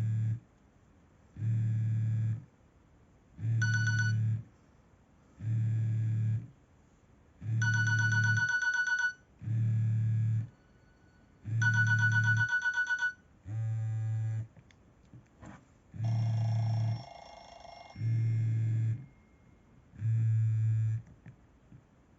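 Nokia E65 ringtone playing: short electronic bursts about every two seconds, each with a low buzz under it. Clear high bell-like tones ring in the bursts about a third and halfway through, and a lower tone near the end.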